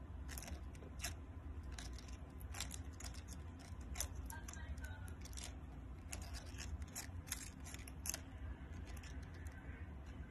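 A praying mantis chewing a beetle larva: irregular crisp crunching clicks as its jaws bite through the larva's shell, some in quick clusters.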